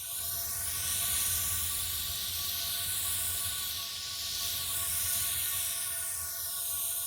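A household appliance running with a steady hiss of rushing air or steam over a low hum and a few steady whining tones.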